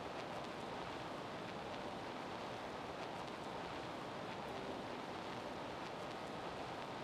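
A steady, even hiss of outdoor background noise with nothing distinct standing out.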